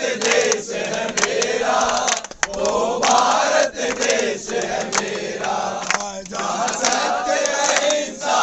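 A crowd of men chanting and singing together in unison, with hand claps among the voices.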